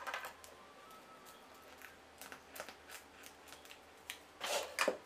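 Plastic cling wrap crackling and rustling as it is pulled from its roll over a ball of dough, with a sharp click at the start and a louder rasp near the end as the roll is pulled away.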